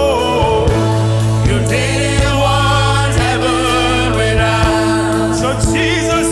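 Gospel worship music: a band plays held bass notes and chords with regular drum hits, and voices sing over them.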